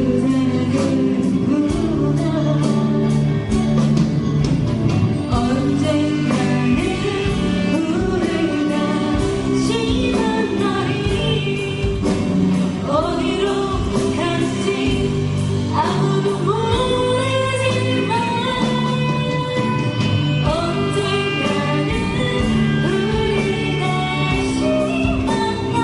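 A live band playing a song with a singer, the vocal line over steady chords and a regular drum beat.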